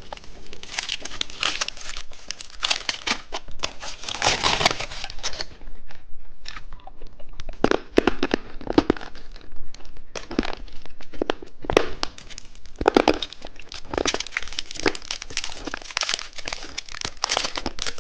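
Plastic candy wrapping crinkling and tearing as it is handled and opened, in irregular bursts with a few short pauses.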